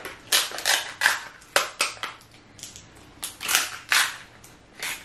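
Kitchen scissors cutting through the hard shell of a king crab leg: a run of sharp, crackling crunches at an irregular pace, some in quick pairs.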